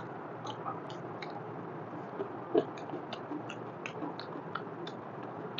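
Close-up eating sounds of rice and mutton trotter curry eaten by hand: chewing with short wet mouth clicks, a few a second, over steady low room noise, with one slightly louder knock about halfway through.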